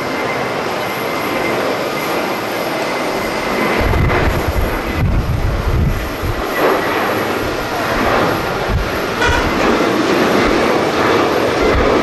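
Twin CFM56 jet engines of a Boeing 737-800 running at takeoff power as the airliner rolls down the runway and lifts off, a steady loud jet noise. From about four seconds in, gusts of wind buffet the microphone with irregular low thumps.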